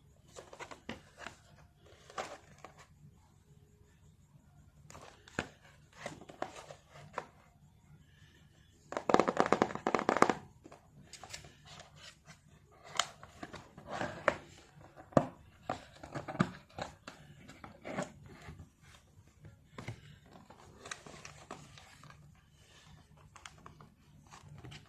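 Packaging being opened by hand: irregular rustling, crinkling and tearing of cardboard and plastic, with scattered clicks. The loudest, longest tear comes about nine seconds in.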